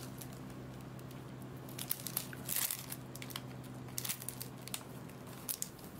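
Plastic bubble wrap being handled, crinkling and crackling in short spells about two seconds in, around four seconds and again near the end, over a faint steady low hum.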